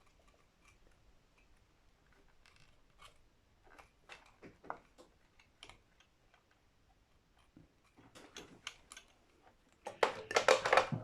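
Scattered light clicks and taps of small hand tools working at the wires on a guitar's potentiometer, with a quick run of louder clicks near the end.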